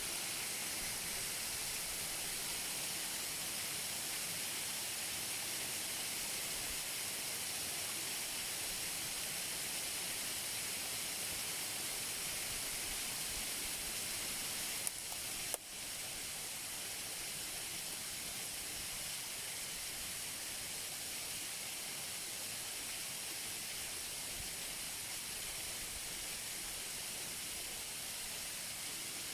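Waterfall up close: steady, hissing rush of falling water. Two brief clicks come about halfway through, after which the rush is slightly quieter.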